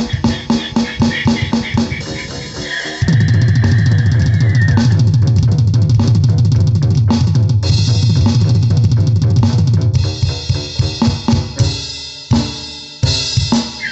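Music with a drum kit playing a fast, steady beat. About three seconds in, a loud, deep bass part comes in under the drums and holds until about ten seconds, then drops out, leaving sparser drum hits.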